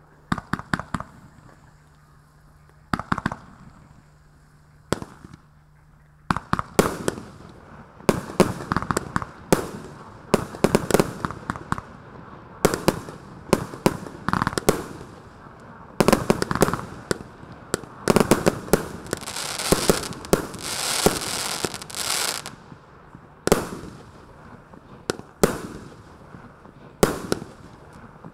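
A 25 mm, 30-shot consumer fireworks cake firing, with sharp reports of its tubes launching and shells bursting. A few spaced shots come first, then after about six seconds a rapid run of them, with a hissing stretch a little past halfway.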